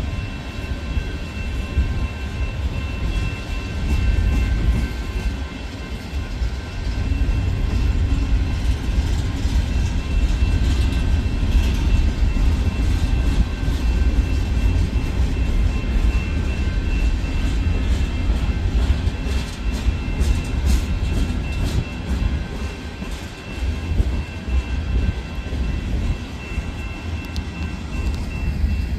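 Freight train cars, boxcars and tank cars, rolling past with a steady heavy rumble of wheels on rail. Over it run a thin steady high whine and scattered clicks and rattles, thickest about two-thirds of the way through.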